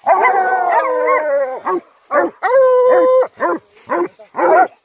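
A pack of hunting hounds baying at a downed deer. It opens with one long, falling howl with other dogs' voices overlapping, then a run of short bays and one long steady howl in the middle.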